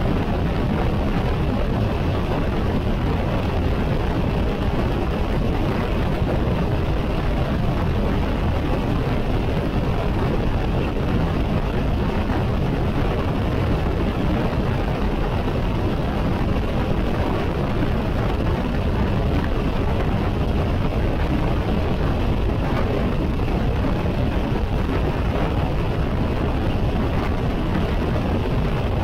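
Steady wind rush and road noise of a BMW K1600 GT motorcycle cruising on the highway at about 85 mph on cruise control.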